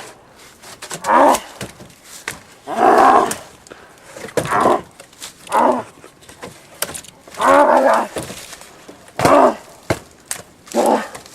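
A voice giving about nine short cries, one every second or so, with quiet gaps between them.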